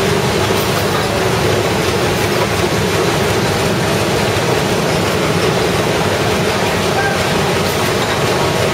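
Lian Tiee AFG 1500 flexo printing machine running, a steady, unbroken mechanical noise from its folder-gluer section's belts and rollers.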